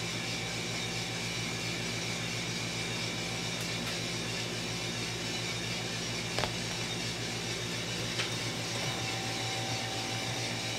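A 2 kg coffee roaster running: a steady mechanical hum with a faint high whine. There are two faint clicks, about six and a half and eight seconds in.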